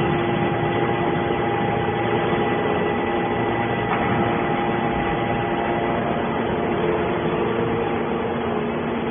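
Hydraulic can baler running: the electric motor and hydraulic pump give a steady hum with a few steady whining tones over a constant noisy rush.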